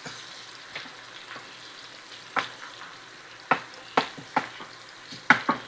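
Chopped onions frying slowly over low heat in bacon grease in a large skillet, a soft steady sizzle, with a wooden spoon stirring and scraping against the pan several times in the second half.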